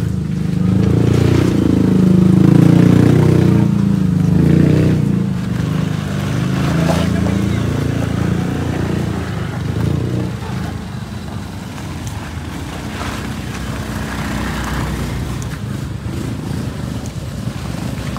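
A heavy vehicle's engine running and revving, its pitch rising and falling over the first few seconds, then settling to a steadier, somewhat quieter running.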